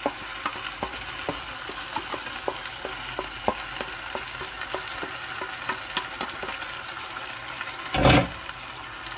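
Diced raw potatoes and onions sizzling in oil in an enamel frying pan: a steady hiss with scattered small crackles as the water from the freshly drained potatoes cooks off. A brief loud noise about eight seconds in.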